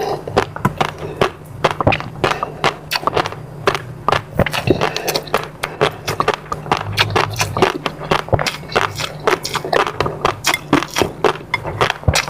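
Close-miked eating sounds: wet chewing, lip smacks and mouth clicks, many a second in an irregular patter, over a faint steady low hum.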